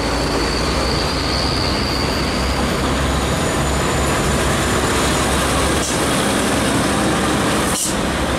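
Diesel engine of a UD (Nissan Diesel) tanker truck running as it drives past, with a steady low rumble and tyre and road noise. A thin high whine sounds over it for the first couple of seconds.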